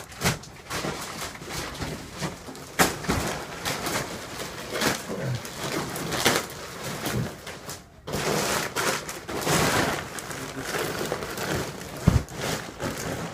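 Thin plastic wrapping crinkling and rustling irregularly as it is pulled off a rolled foam mattress, with a dull thud near the end.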